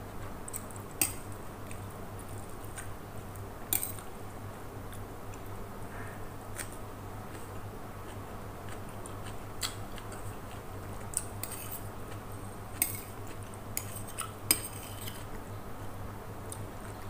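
Metal spoon clinking and scraping against a ceramic plate while eating, with several sharp clinks spread through, over a steady low hum.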